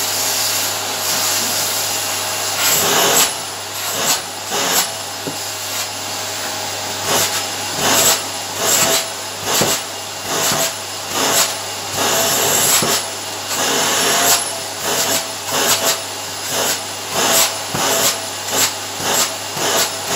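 Upright vacuum cleaner running over carpet with a steady whine. From about three seconds in, the sound swells and falls again about once a second as it is pushed back and forth.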